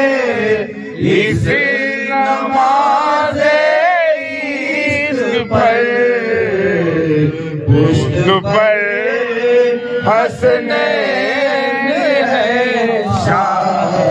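A man's voice singing a devotional Urdu kalam (a manqabat for Karbala) in long, wavering, ornamented notes without clear words, over musical accompaniment.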